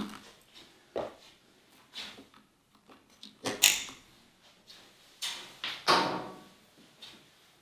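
Hands handling and tucking a wiring cable behind a motorcycle's front fairing: scattered rustles, scrapes and light knocks of cable against plastic and frame, the loudest about three and a half seconds in and again near six seconds.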